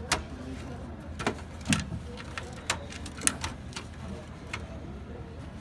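Sharp clicks and light knocks of plastic and metal parts being handled inside an open Dell desktop computer case, about six separate clicks spread over a few seconds.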